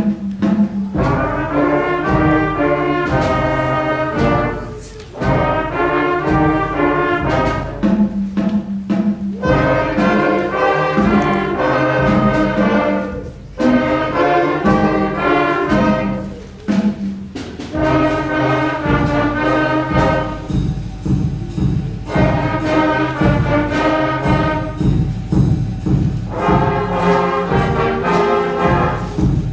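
Student school band playing a piece with brass and percussion, in short phrases over a steady beat that break off briefly a few times.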